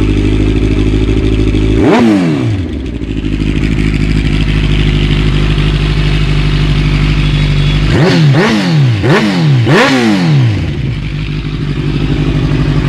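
A 2014 Kawasaki Ninja 1000's inline-four engine idling loudly through aftermarket GPR slip-on exhausts. It is blipped once about two seconds in, then given a quick series of about four throttle blips around eight to ten seconds in, each rising sharply and dropping back to idle.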